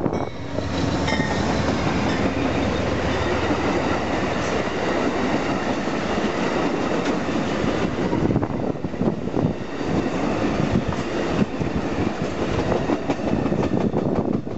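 Amtrak GE P42DC Genesis diesel locomotives passing close at speed, followed by a string of double-deck Superliner passenger cars rushing by, wheels clicking over the rail joints. The locomotives' engine hum dominates the first few seconds; the passing cars give a steady roar with sharper wheel clicks in the second half.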